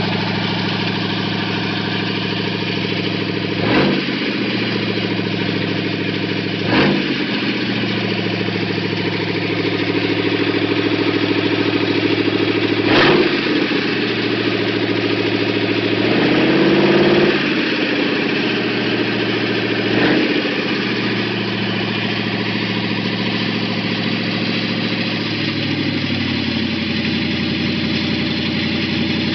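An engine idling steadily, with a few short knocks and one brief rise and fall in engine pitch partway through.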